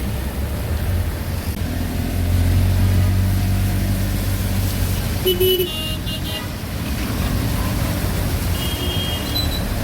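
Auto-rickshaw engine running with a steady low drone while riding, with short horn toots about five seconds in and again near the end.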